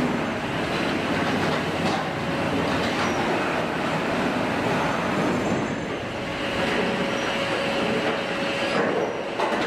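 Steady industrial machine noise of a ring debarker running as logs are fed through its rotating toothed ring, with a faint steady whine in the second half.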